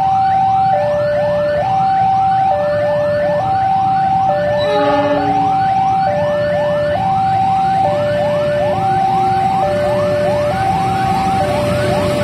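Electronic two-tone siren alternating between a high and a low note about every second, with a fast run of rising chirps, about three a second, laid over it.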